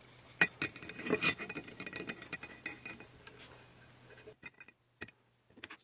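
Steel dividers clicking and scraping against the brass rim of an old fire extinguisher collar while measuring its inside diameter. Light metallic ticks come with a faint ring and thin out after about four seconds to a few single clicks.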